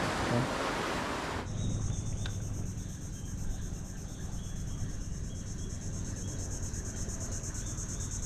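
A brief rushing noise cuts off about a second and a half in, giving way to a steady, high-pitched insect chorus with a fast pulsing shimmer.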